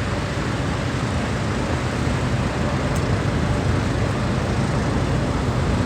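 Steady city traffic noise: a continuous low rumble of passing vehicles with an even hiss over it.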